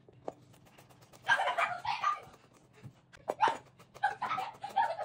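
A dog barking and whining in two bouts, about a second in and again from about three seconds in. A chef's knife taps a few times on a plastic cutting board as garlic is chopped.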